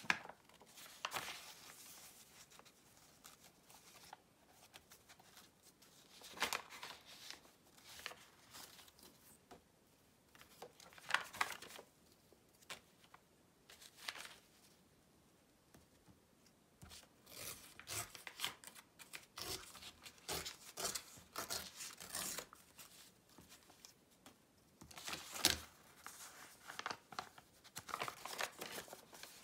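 Old book paper handled by hand: pages turned and rustled, and paper torn in short rips along a ruler's edge. The sounds come in separate bursts with quiet gaps, and there is a quick run of rips in the middle.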